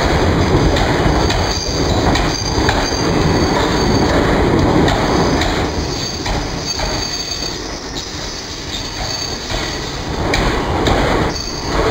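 Passenger train rolling on the track, its wheels clicking over rail joints, with a faint high wheel squeal.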